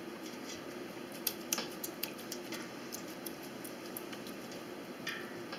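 Faint, scattered small wet clicks and squelches from a hand pressing wool down into vinegar water in a stainless steel pot, over a steady low hiss.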